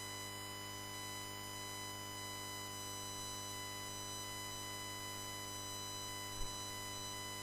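Steady electrical mains hum with a buzzy ladder of overtones from the commentary microphone and audio line, heard while nobody speaks; a faint bump a little past six seconds in.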